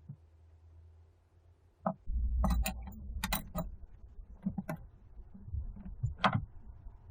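Sharp small clicks and taps from handling a phone and small repair tools during reassembly, about seven of them starting some two seconds in, over low bumping handling noise.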